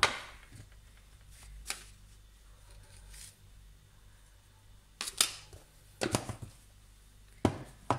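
A metal spoon and kitchen containers clicking and tapping as salt is spooned into a ceramic bowl. The sharp clicks come singly and in small clusters, with quiet between them.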